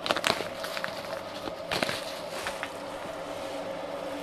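Plastic bag of crystal malt grain crinkling in a few sharp crackles as it is handled and tipped for pouring, over a steady faint hum.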